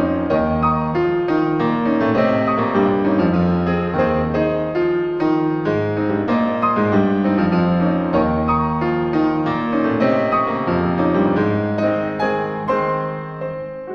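Background music: piano playing a steady stream of notes over sustained low bass tones.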